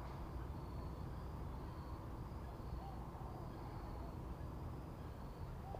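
Quiet outdoor ambience: a low steady rumble with a few faint bird calls.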